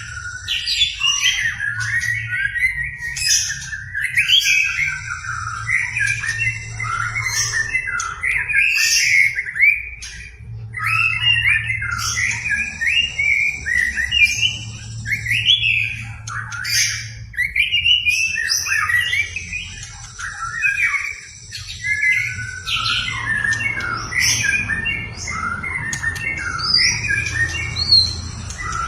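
White-rumped shama (murai batu) singing vigorously, a long, varied song of rapid whistles, chatters and sweeping notes with only brief pauses, showing off its full repertoire of mimicked phrases.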